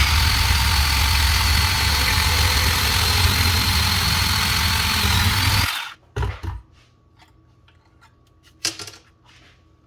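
Dewalt DCS370 18V cordless bandsaw running steadily as it cuts through schedule 40 pipe, then stopping about six seconds in, once the cut is through. A few light knocks follow.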